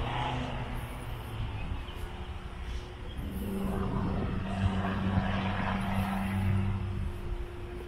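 A motor vehicle's engine running with a steady low hum. It swells about three seconds in and eases off near the end.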